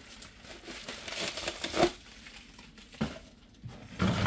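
Plastic wrapping crinkling and rustling as a rubber mat is unwrapped by hand, with a louder burst of handling noise near the end.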